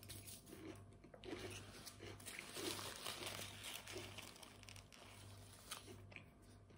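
Faint rustling and crinkling of a paper napkin as it is handled and pressed to the mouth, thickest a couple of seconds in, with a few small clicks.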